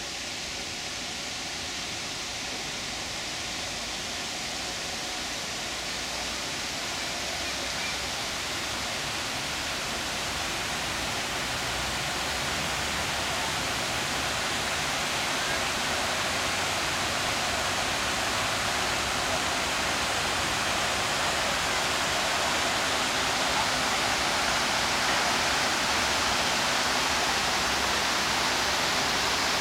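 Steady rush of falling water from a park's stepped cascade and fountain, growing gradually louder.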